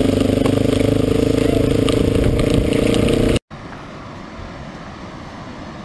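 Motorcycle engine running steadily at cruising speed under wind and rain noise, with scattered ticks of rain striking the camera. About three and a half seconds in, it cuts off abruptly to a much quieter, steady outdoor hiss.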